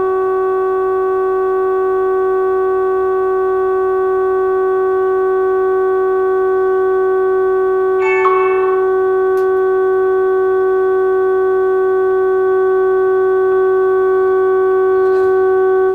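Steady, unbroken test tone with overtones from the Healing 503E valve radio's loudspeaker. It is the signal generator's modulated test signal near the top of the broadcast band, received while the antenna trimmer is peaked for the strongest signal. A brief disturbance rides on the tone about halfway through.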